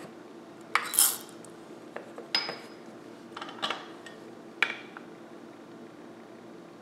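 Four or five short metallic clinks and knocks: a steel espresso portafilter and the grinder's parts being handled and set down on a small scale, one clink ringing briefly. A faint steady hum runs beneath.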